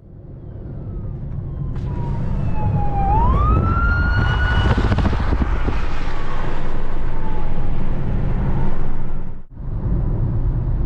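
An emergency vehicle's siren wailing: a tone that slides slowly down, sweeps sharply back up about three seconds in, holds and then falls away again. Loud road and traffic rumble runs underneath and is the loudest sound.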